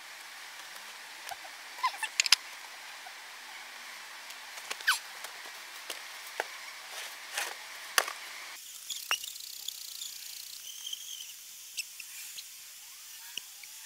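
Wooden beehive boxes being pried apart and lifted: scattered sharp clicks, cracks and knocks over a steady outdoor hiss.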